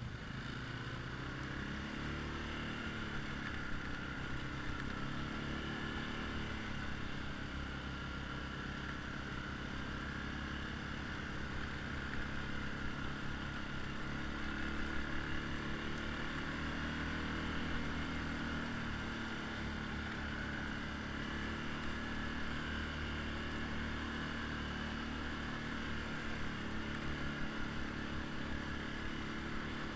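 ATV engine running while riding along a sandy track, its pitch rising and falling slowly with the throttle.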